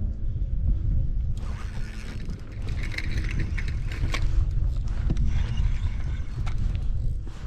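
Wind rumbling on the microphone. About a second and a half in, a hiss and scattered clicks join it.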